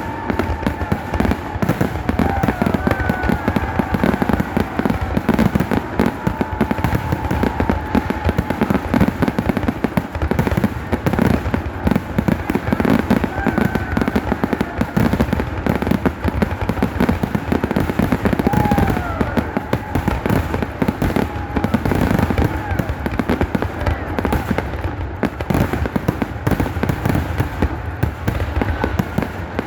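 A fireworks display in full barrage: a continuous, dense run of bangs and crackles with no pause, loud throughout, with a few short whistling tones falling in pitch.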